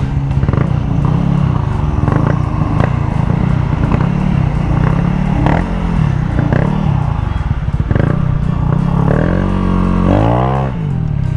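Modified automatic scooter engine under way, its CVT clutch and roller weights newly swapped, revving up and down under throttle blips with intermittent clatter. Near the end it revs up in one strong rise and then drops off.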